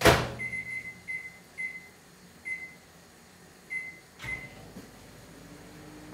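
Microwave oven being set: a loud knock at the start, about six short high keypad beeps, then a click and the oven's steady hum starting up a little over four seconds in.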